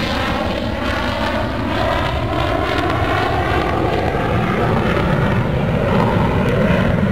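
Aircraft engine drone, steady and loud, its pitch slowly shifting.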